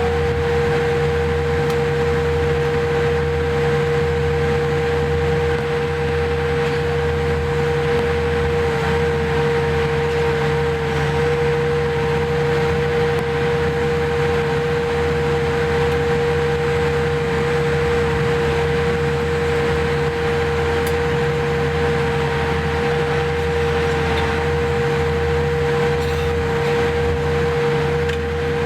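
Steady cabin noise inside a Boeing 787-8 Dreamliner on the ground after landing: a constant hum with a steady mid-pitched tone over a low rumble.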